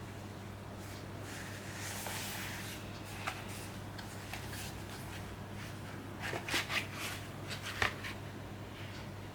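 Hands handling Blu-ray packaging: a soft sliding rustle, then a cluster of sharp clicks and taps about six to eight seconds in, over a steady low hum.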